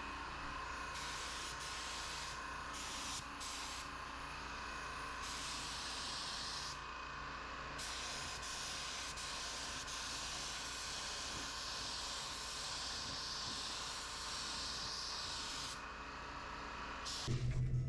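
Air spray gun with a 1.4 mm tip set wide open, hissing as it sprays clear coat in passes. The high part of the hiss drops out and comes back several times as the trigger is let off and pulled again. The spraying stops just before the end.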